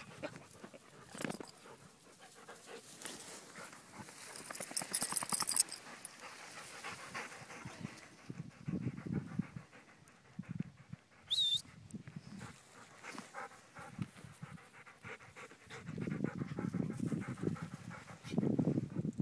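Dogs panting hard during play, with rustling movement through grass and one brief high squeak about eleven seconds in.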